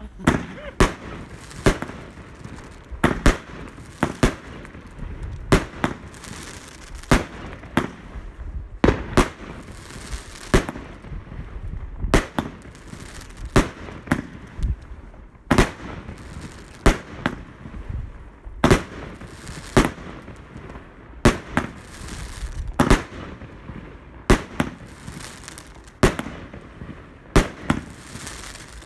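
Consumer fireworks battery ('4 i 1 Bombebrian') firing shot after shot: sharp bangs of launches and bursts, roughly one a second.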